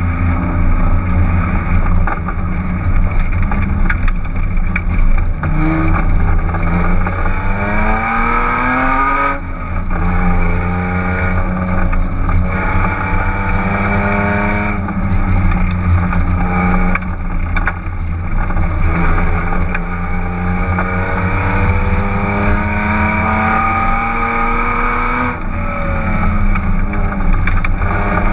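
BMW E36 328is straight-six heard from inside the cabin, pulling hard: the engine note climbs as the car accelerates and drops suddenly at upshifts about nine and twenty-five seconds in, with brief lifts in between. The exhaust hangs disconnected at the midpipe, so the engine runs loud and unsilenced.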